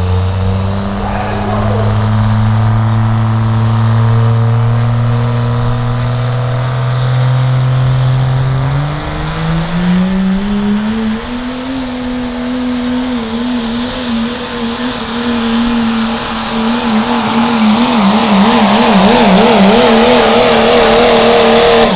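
Pro stock diesel pickup truck engine under a pulling run: a steady low note for several seconds, then revs climbing about nine seconds in and held high and hard. Near the end the engine pitch wavers rapidly up and down, then cuts off suddenly.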